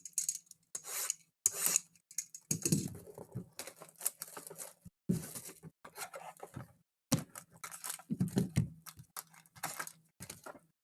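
A sealed trading-card box being unwrapped and opened: irregular bursts of crinkling, tearing and rustling of plastic wrap and packaging.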